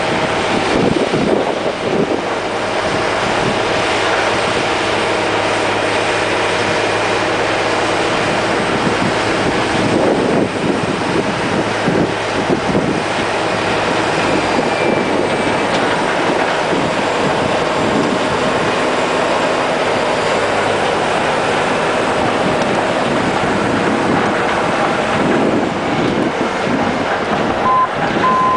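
Caterpillar D8N bulldozer's six-cylinder turbo-diesel running steadily under load as it pushes a blade-load of dirt, with wind buffeting the microphone. Near the end a backup alarm starts beeping.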